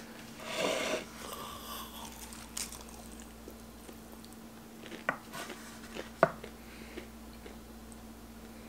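Quiet chewing and biting of crispy karaage (Japanese fried chicken), with a few short sharp clicks, the loudest about five and six seconds in, over a faint steady hum.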